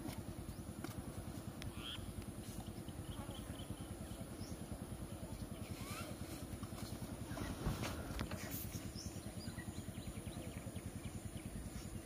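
A vehicle engine idling steadily close by, with a rapid, even low pulse that does not change.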